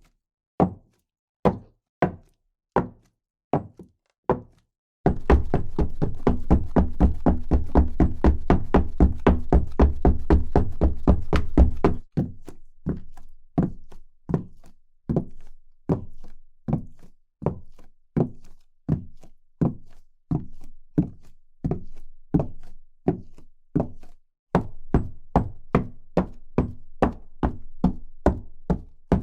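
Footsteps on a hard floor, each step a dull knock, in several takes: slow steps with silence between, then a stretch of fast steps over a steady low hum, then steady walking, and a quicker pace again near the end.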